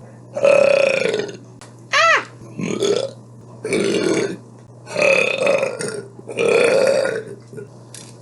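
A woman belching, about six loud burps one after another with short gaps between, most long and rough, one short burp about two seconds in that rises and falls in pitch.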